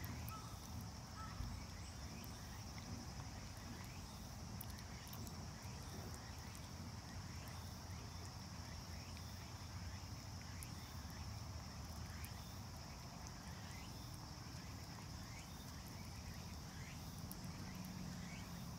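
A cat chewing food, with faint irregular clicks, over a steady high insect drone and repeated short rising chirps.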